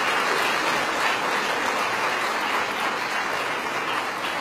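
Audience applauding steadily, a sustained clapping from a large crowd.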